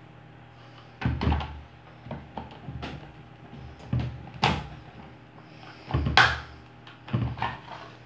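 Hard plastic knocks and clatter as the black plastic motor cover of a Mallory Delphus TS fan is pried at with a small screwdriver and worked loose. There are several separate bumps, the loudest about six seconds in.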